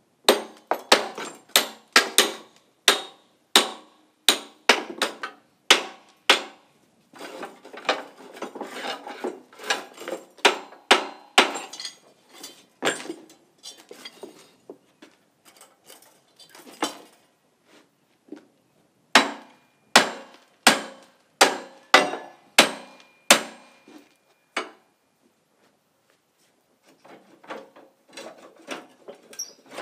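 Hand hammer striking the steel parts of an old three-bottom plow, knocking loose rusted parts, in runs of sharp ringing blows. After a stretch of rattling there is a second run of blows, then lighter metal clatter near the end.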